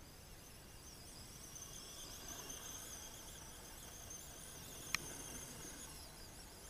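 Radio-controlled scale rock crawler's electric motor and gear drive whining faintly under load as it climbs a steep dirt slope, the high whine wavering with the load. A single sharp click about five seconds in.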